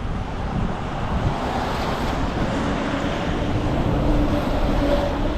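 A car driving past on the road: tyre rush and engine hum that swell a little about four to five seconds in.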